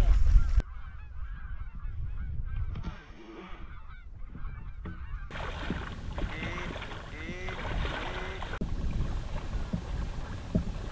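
A flock of wild waterfowl calling: many short calls, overlapping and repeated.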